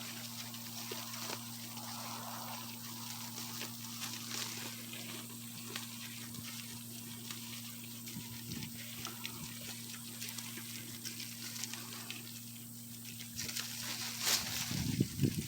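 Goats browsing on a tree: leaves and twigs rustling and crackling as they pull at and chew the foliage, with a louder flurry of rustling and knocks near the end. A steady low hum runs underneath.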